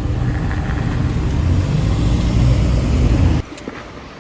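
Steady low rumble of a moving road vehicle. It cuts off abruptly about three and a half seconds in, leaving quieter background with a few light clicks.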